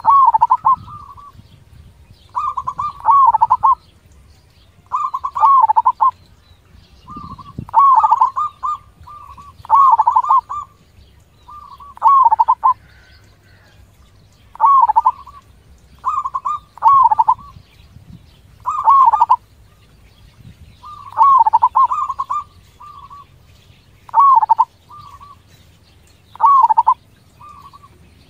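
Zebra dove (perkutut) cooing: a short phrase of quick, wavering notes about every two seconds, each one loud and clear against a quiet background.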